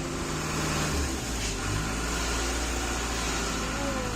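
Motor vehicle engine running steadily, a low hum whose pitch shifts a little now and then, over a steady wash of road or traffic noise.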